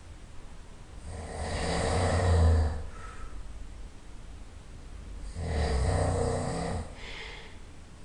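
A man snoring loudly in his sleep: two long snores about four seconds apart, the first one longer and louder.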